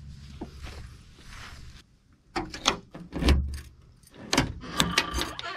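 Keys jangling and clicking in a Cadillac trunk lock as the trunk is unlocked: a string of sharp metallic clicks and knocks, with one heavier thump about halfway. Before that, soft rubbing of a towel on windshield glass.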